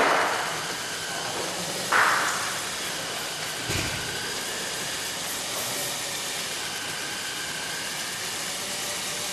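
Two short hissing bursts about two seconds apart, then a dull thump, over a steady hiss, as the cardboard robot costume's telescoping legs extend.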